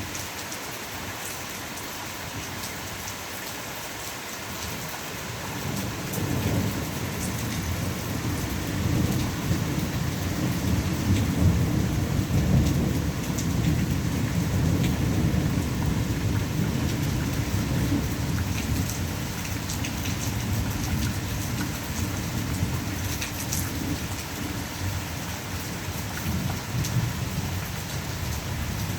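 Steady rain with a long, low rumble of thunder that rolls in about five seconds in and keeps going.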